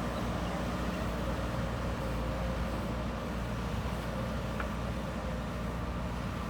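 Diesel engine of a JCB 3DX Super backhoe loader running steadily under work, a continuous low rumble with a steady hum over it.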